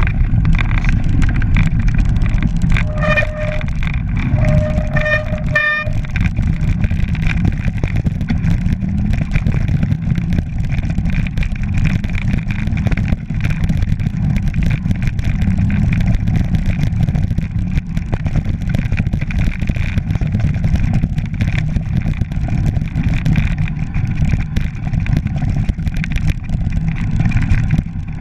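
Mountain bike riding down a rough stony track: steady wind rumble on the microphone with constant rattling and knocking from the tyres and bike over the stones, and two short squeals a few seconds in.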